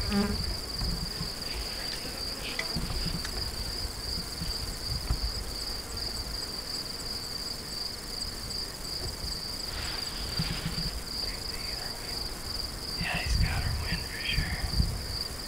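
Crickets calling in a steady chorus, one continuous high trill, with a faint fast ticking of another insect above it for a few seconds in the middle. A low rumble lies underneath, and a few brief faint noises come near the end.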